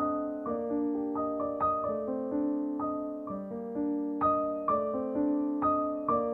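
Background music: slow solo piano, single notes and chords struck about two a second and left to ring.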